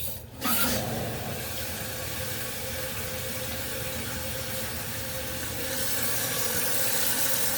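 Toilet tank refilling through its fill valve once the supply valve is opened: water hissing in steadily. It starts suddenly about half a second in and gets a little louder near the end.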